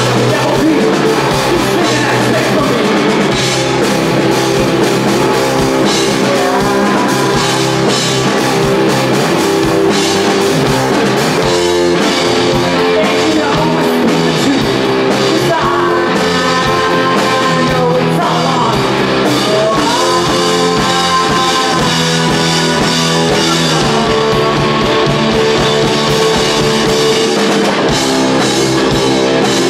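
Live rock band playing loudly: distorted electric guitar, electric bass and a drum kit.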